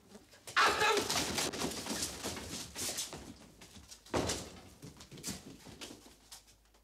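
Schoolboys getting to their feet in a classroom: wooden benches and desks scraping and knocking, feet shuffling, with a brief murmur of voices. A second burst of scraping comes about four seconds in, then scattered smaller knocks.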